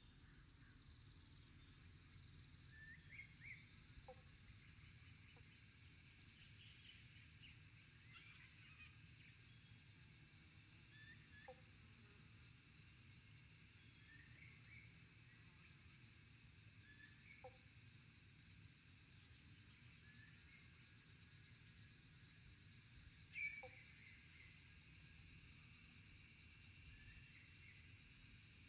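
Faint evening pond ambience: a cricket chirping steadily at a high pitch about every second and a half, a short low call repeating every few seconds, and scattered faint chirps, with one louder chirp about three-quarters of the way through.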